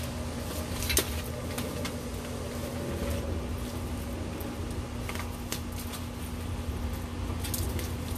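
Green-winged macaw flapping and shaking its wet feathers while bathing: a few short sharp rustles and clicks, several near the end, over a steady low hum.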